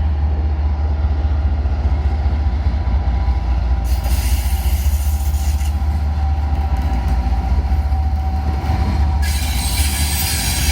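Union Pacific freight train rolling past, its cars giving a steady low rumble with a thin wheel squeal over it. A higher hiss comes up about four seconds in and again near the end.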